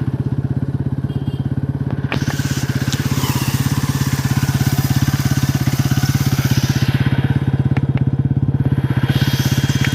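Bajaj Pulsar NS200 BS6's single-cylinder engine running steadily with fast, even firing pulses, played to show the chain noise the owner is complaining about: a loose chain that he suspects is worn, or a worn sprocket.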